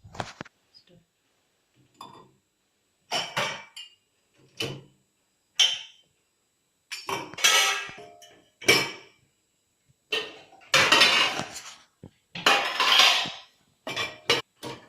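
Dishes, vessels and cutlery clattering and clinking as they are set into a dishwasher's racks, in a string of separate bursts with short pauses between them.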